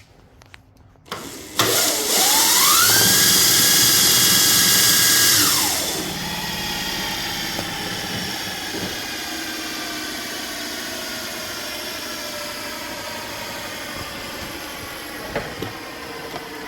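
Razor RSF650 electric motorcycle's motor spun up on a stand at the low-speed switch setting. A whine rises for about a second and holds steady for a few seconds. It then drops when the throttle is let go, and the rear wheel coasts down with a slowly falling whine.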